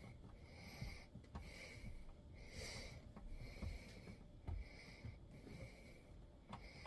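A man breathing hard and evenly through his nose, the faint breaths following one another with little pause, while he strains at awkward work overhead. A few faint clicks of handling come through.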